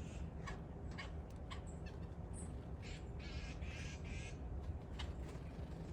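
Red-bellied woodpecker giving harsh, rasping calls, the longest about three seconds in and lasting about a second, among several sharp short clicks, over a steady low rumble.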